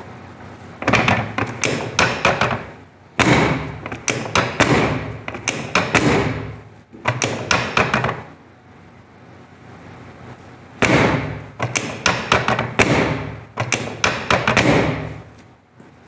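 Chiropractic drop table sections snapping down under the chiropractor's thrusts: repeated sharp thuds, several a second, in three runs with short pauses between.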